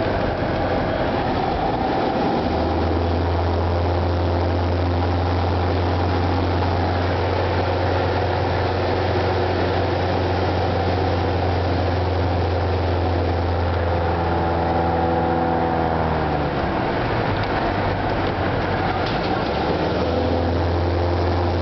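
Light aircraft's propeller engine droning inside the cabin. The engine note drops about three-quarters of the way through and comes back up near the end, as the power is changed while the plane is flown through zero-g parabolas.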